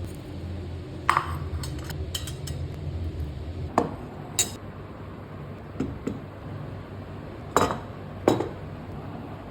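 A metal spoon or ladle clinking against a pot or bowl: about five sharp, ringing clinks with a few lighter taps between them, over a steady low hum.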